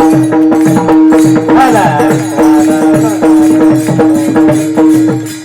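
Devotional kirtan music: a steady held drone note under fast, even percussion strokes, with a melody line gliding above. It fades out near the end.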